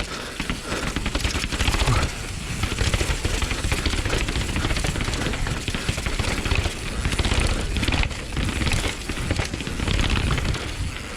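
Transition TR11 downhill mountain bike clattering at speed over rough urban ground: a dense, fast rattle of tyre and frame impacts over a steady rush of noise.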